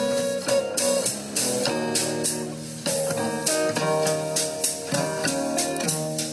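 Guitar-led music with quick plucked notes over a light drum beat, played back as a hi-fi listening test of a vacuum-tube audio system.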